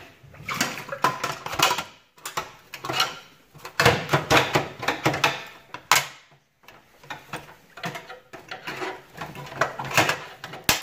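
Sheet-metal safe deposit box drawers being pulled and worked out of their forced compartments: irregular metal scrapes, rattles and clanks with short pauses between.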